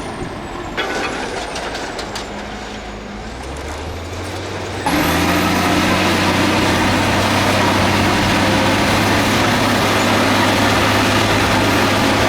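Diesel engines of heavy earthmoving equipment (bulldozer and dump trucks) running, with a few knocks in the first seconds. About five seconds in the sound jumps abruptly to a louder, steady engine sound.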